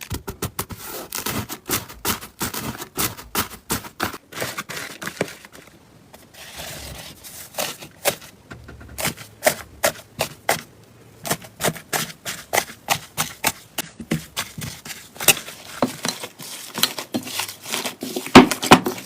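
Slime being squeezed and pressed by hand, giving rapid, irregular crackles and clicks, with a quieter stretch about six seconds in.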